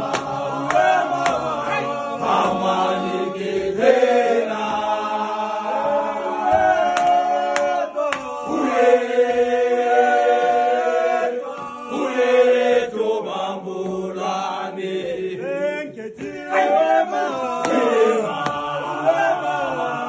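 A group of men singing a gwijo, a Zulu football chant, together without instruments, several voices in harmony, with long held chords in the middle.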